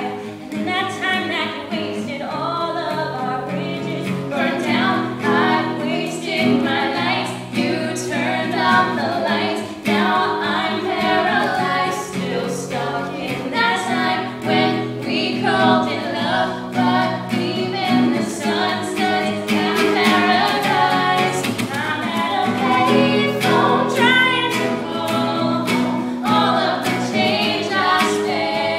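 Women singing a song over instrumental accompaniment with guitar.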